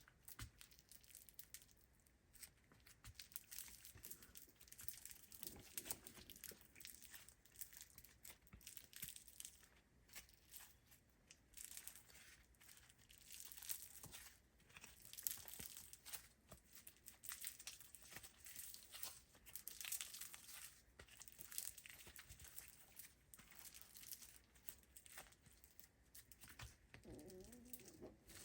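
Foam slime being squeezed and stretched by hand, giving faint, irregular crackles and small pops.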